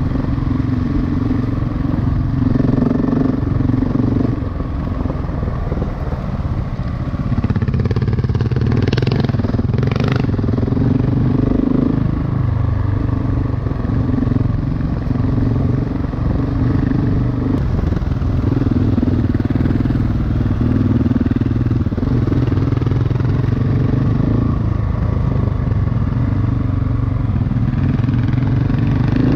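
Single-cylinder dual-sport motorcycle engine running steadily under way, easing off briefly about five seconds in, with a couple of short knocks about nine to ten seconds in.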